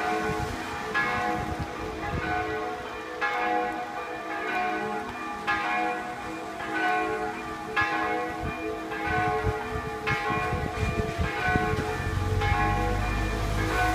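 Three swinging church bells rung together, their strikes overlapping at an uneven pace of more than one a second, each leaving a long ringing tone. A low rumble comes in near the end.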